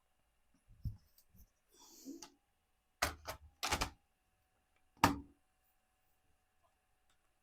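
Plastic bottom panel of a laptop being set back on and pressed into place: a few sharp plastic clicks and taps, the loudest about three and five seconds in, with softer handling knocks between.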